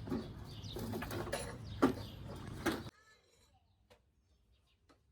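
Outdoor background noise with a few sharp clicks and knocks, cutting off abruptly about three seconds in to near silence.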